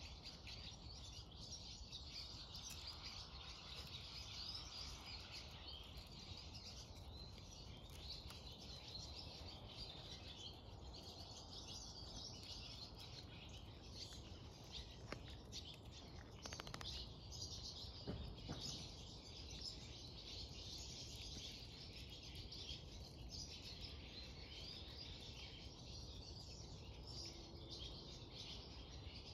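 Faint chorus of small birds chirping and singing, steady throughout, over a low outdoor rumble, with a few short clicks about halfway through.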